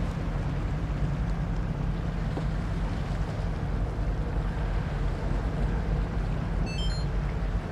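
Diesel engine of a river sand-carrying boat running steadily with a low throb, with wind noise on the microphone. A short run of high chirps near the end.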